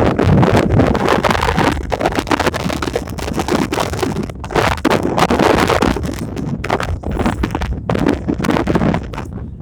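Strong gusty wind buffeting the microphone, a loud uneven rumble and rush that surges and drops.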